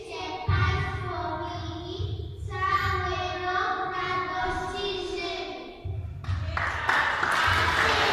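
Young children singing together in held, sung notes. About six seconds in, the audience breaks into clapping and cheering, which swells to the end.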